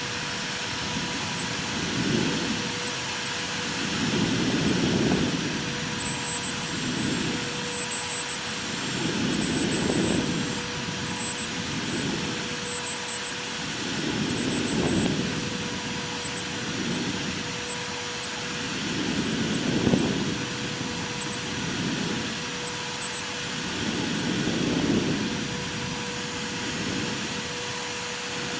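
CNC router cutting MDF: a steady spindle whine over a hiss, with the cutting noise swelling and fading in a regular rhythm about every two and a half seconds.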